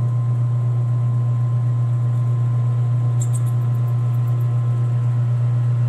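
Metal lathe running with the workpiece spinning in the chuck: a steady, even motor hum.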